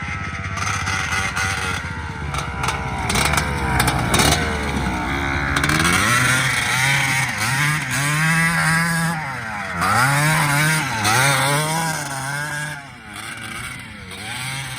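Small off-road engine revving hard, its pitch climbing and then swinging up and down several times, easing off near the end.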